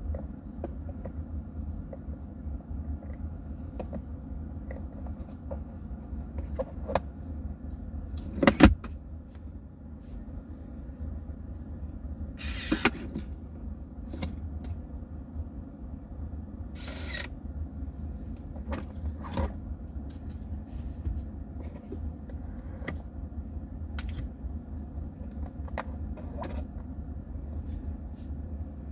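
A hard plastic 3D-printed gun safe being handled: scattered clicks and knocks, one sharp knock about a third of the way in, and two brief sliding scrapes, over a steady low hum.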